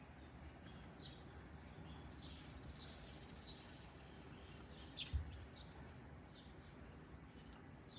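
Faint, repeated short high-pitched bird chirps over a low background hum, with a single sharp knock about five seconds in.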